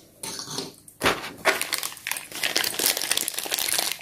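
A light knock of a small plastic piece on the table about a second in, then clear plastic packaging crinkling steadily as hands handle a bagged toy piece.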